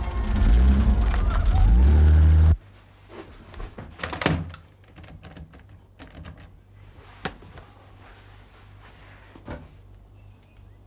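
A loud, low, rising sound cuts off suddenly, then a few scattered knocks and clicks, the sharpest about four seconds in, like objects being handled or a door being worked.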